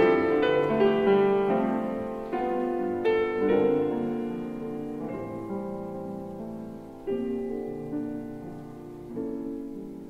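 Slow, quiet solo piano music: notes and chords struck a second or more apart and left to ring and fade.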